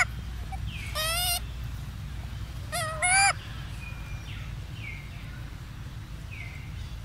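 High, wavering cries from a young macaque, each about half a second long, three times in the first few seconds, followed by a few fainter short falling calls. A steady low rumble lies under them.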